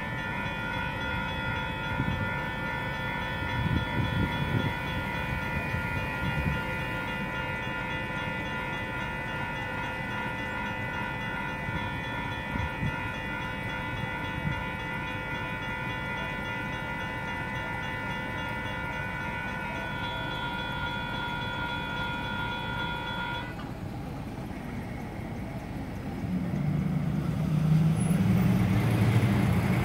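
Safetran Type 1 electronic railroad crossing bell ringing steadily, then cutting off about three-quarters of the way through. Near the end, the low rumble of road traffic engines builds and grows louder as the gates are up.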